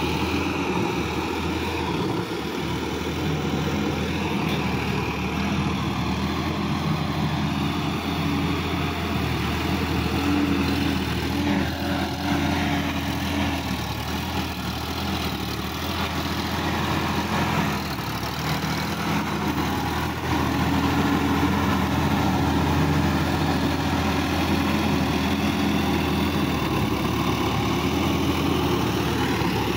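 Sonalika DI-50 RX tractor's diesel engine running steadily as it pulls a rear-mounted rotary tiller through flooded paddy mud.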